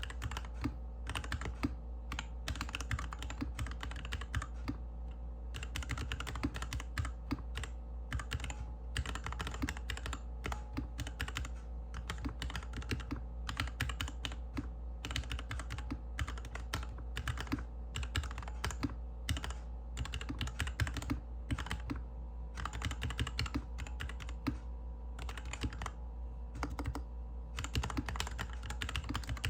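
Slow typing on a GK61X mechanical keyboard with Cherry MX Hyperglide Black linear switches, a stainless steel plate, a plastic case and DSA keycaps, set on a desk mat. Keystrokes clack in runs broken by brief pauses, over a steady low hum.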